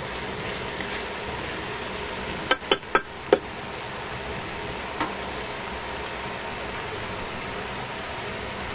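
Chopsticks tapped four times in quick succession against the rim of a stainless-steel frying pan, then one fainter tap about two seconds later, over a steady background hum.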